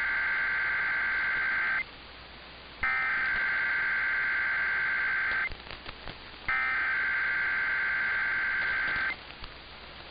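Emergency Alert System SAME header: digital data bursts of two-tone screeching that play three times, about a second apart, each lasting roughly two and a half seconds, with the first already under way. These bursts carry the coded alert, here an AMBER child-abduction alert, ahead of the spoken message.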